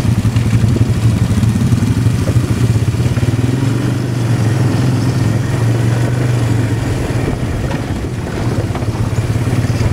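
ATV (quad bike) engine running steadily while riding, with a low, even drone that eases off slightly about eight seconds in.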